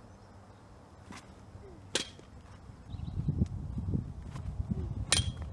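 Baseball pitches smacking into a catcher's leather mitt: two sharp pops, about 2 s and 5 s in, the second the loudest. From about halfway, wind rumbles on the microphone.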